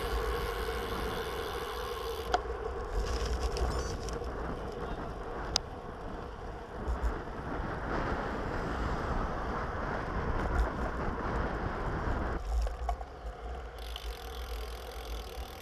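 Road bike riding at speed on asphalt: a steady rush of wind over the microphone with tyre noise, dropping away about twelve seconds in.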